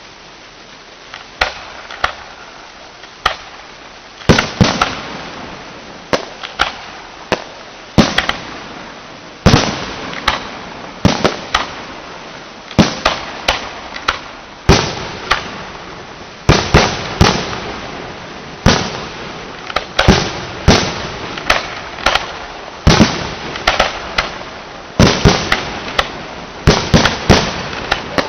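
Fireworks display: aerial shells bursting in a long, irregular series of sharp bangs, each trailing off in an echo. A few scattered bangs come in the first seconds, then from about four seconds in they follow one or two a second.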